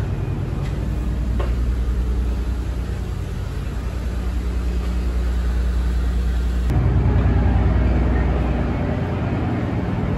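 Steady low drone of a car ferry's engines heard through the ship. About two-thirds of the way through it changes abruptly to a rougher, noisier rumble.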